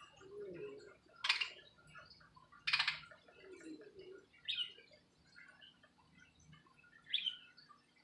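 Budgerigars calling: two loud, harsh squawks about a second and a half apart, then two short chirps, one near the middle and one near the end, with soft chatter between.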